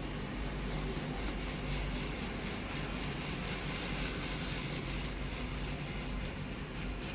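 A 2012 Ford Fusion's engine running with a steady, even drone.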